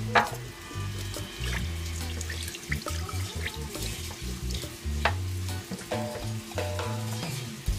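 Knife scraping the scales off a wireback jack fish held in a sink of water, a run of sharp scrapes with small splashes. Background music with a heavy bass line plays underneath.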